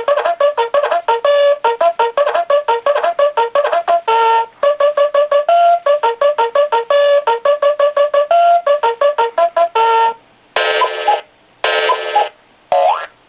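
Nickelodeon Time Blaster alarm clock playing its electronic alarm sounds through its small speaker. First comes a fast bugle-like tune of short trumpet-like notes for about ten seconds. Then come separate buzzing blasts, and near the end a run of quick rising boing-like sweeps.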